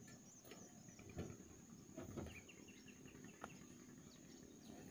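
Faint riverside ambience: a steady high insect drone with a few short bird chirps, and several soft low thumps.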